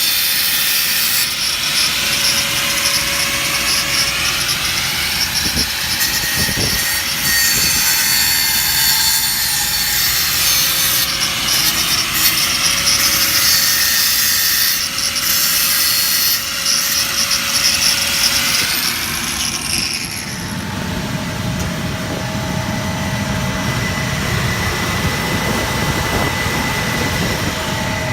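Make-up air unit running with a loud, steady rush of air and a steady tone. About two-thirds through, a whine slides down in pitch, the hiss falls away and a lower rumble takes over.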